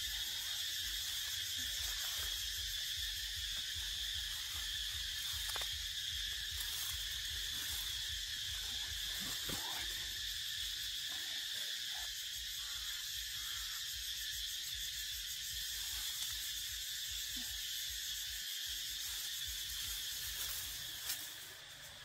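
Insects droning steadily in a high, even buzz, with a low rumble underneath and a few faint clicks.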